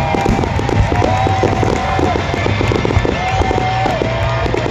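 Fireworks display: a dense, steady run of rapid pops and crackles from crackling effects and bursting shells.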